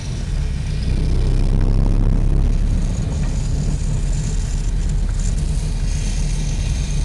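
A car driving along a snow-covered road, a steady low rumble of engine and tyres heard through an open window.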